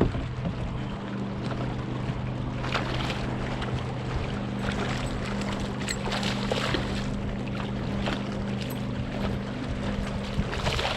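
Steady low hum of a boat motor over water noise, with short splashes a few times, about three seconds in, at six seconds and near the end.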